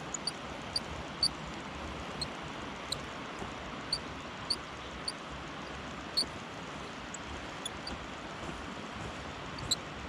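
Spinning reel squeaking as it is wound, short high squeaks coming about once a second over a steady rush of river water. The reel is running dry and, in the angler's view, needs oil.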